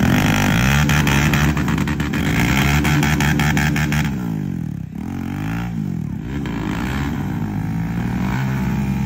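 Motorcycle engines, among them a Bajaj Dominar 400, revving hard with their rear wheels spinning in deep wet mud. The revs rise and fall repeatedly, dropping back twice past the middle, over a dense crackle of flung mud and water in the first few seconds.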